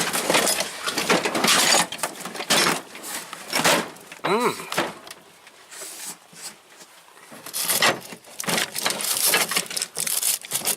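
Metal hand tools clanking and rattling as they are shifted around in a tool box drawer, with a quieter stretch midway.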